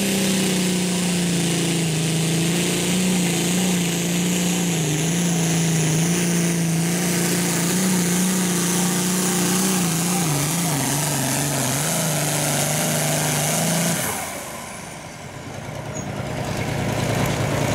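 Turbocharged diesel super farm tractor engine at full throttle pulling a weight-transfer sled, loud and steady with a slight wavering in pitch. About fourteen seconds in it drops away briefly, then engine noise builds up again.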